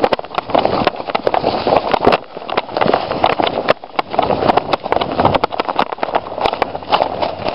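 Quick irregular footfalls and knocks, with clattering and rustling as a player moves at a run during an airsoft game.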